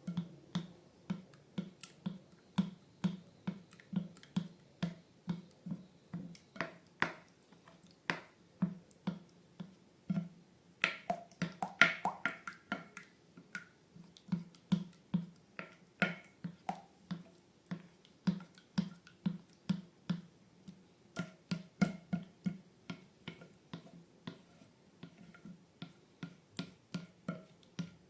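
A steady run of sharp clicks, about two or three a second, each with a low thud beneath it.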